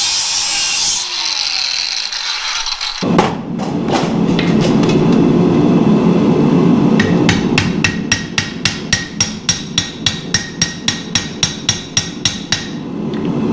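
A power tool's high hiss winds down with a falling tone in the first few seconds. A steady roar then sets in, and from about the middle a blacksmith's hammer strikes steel in a steady run of blows, about three a second, stopping shortly before the end.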